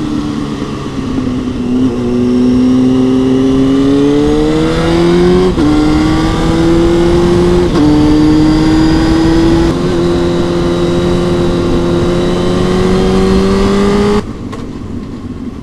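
2003 Honda CB600F Hornet's inline-four, through a Mivv X-cone aftermarket exhaust, pulling hard under acceleration and shifting up through the gears several times, the note dropping at each shift and climbing again. Near the end the throttle closes and the engine sound drops away sharply.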